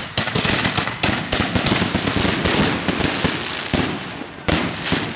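Consumer fireworks going off: a dense, rapid run of bangs and crackling, with a few louder pops, that dies away near the end.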